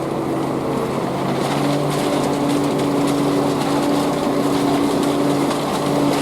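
Engine of a concrete mixer lorry running steadily at a constant speed while it pours its first load of concrete.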